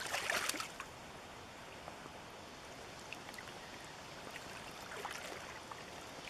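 River water running steadily, with a few short splashy knocks in the first second.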